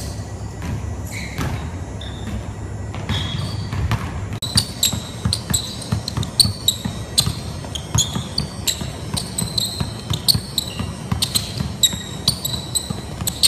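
Basketball dribbled quickly and repeatedly on a hardwood gym floor in a large echoing gym, with short high sneaker squeaks on the wood; the bounces and squeaks come thick and fast from about four seconds in.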